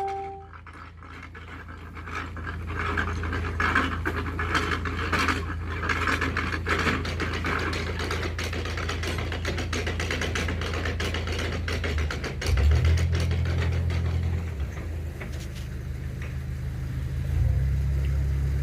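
Narrowboat diesel engine running with a steady low hum. Its note steps up about twelve seconds in and again near the end as the engine is given more throttle. A light crackling noise rides over it in the first half.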